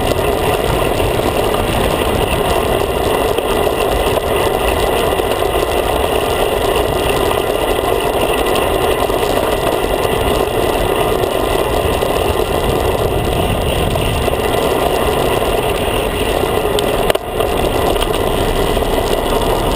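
Steady wind and road noise on a handlebar-mounted action camera while riding a road bicycle, with cars passing close by. The noise briefly drops about 17 seconds in.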